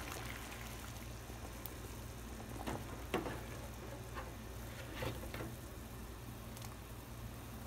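Pot of water at a full rolling boil, bubbling steadily, with a few faint clicks spread through.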